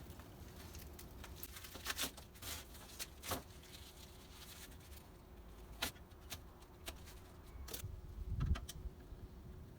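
Scattered light clicks and taps over a steady low hum, with a duller low thump about eight and a half seconds in.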